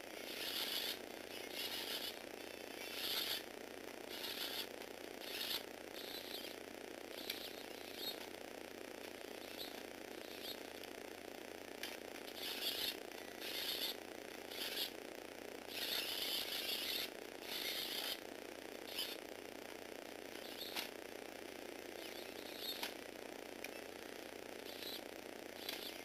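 Small electric motors and plastic gears of a motorised Lego Technic car chassis whirring in many short, irregular bursts, most under a second long, as the steering is driven back and forth. A steady low hum runs underneath.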